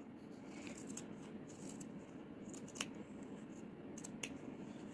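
Scissors cutting through fabric, trimming the seam allowance a few millimetres from the stitching: faint snips, with a couple of sharper clicks, one about halfway through and one near the end.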